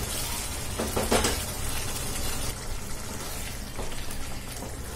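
Thick potato curry gravy bubbling in a nonstick pan while a wooden spatula stirs it, with two short scrapes of the spatula about a second in.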